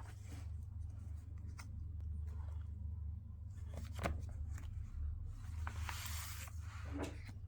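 Small handling sounds: scattered light clicks and knocks, one sharper click about four seconds in, and a rustling swish lasting about a second a little after five seconds in, over a low steady hum.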